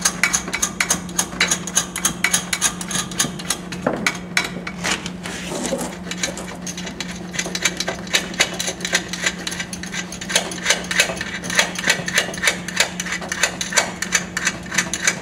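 Serrated flange nuts spun by hand up threaded rods on a truck-deck leg's base plate: fast, uneven metallic clicking and rattling. A steady low hum runs underneath.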